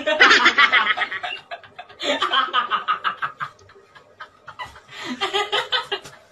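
Laughter in three bursts of quick, pulsing ha-ha sounds, with a quieter lull in the middle.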